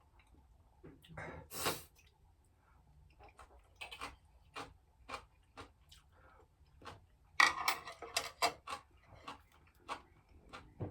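Eating sounds: a run of short clicks and crunchy crackles, such as utensils and chewing, with a louder cluster about seven and a half seconds in.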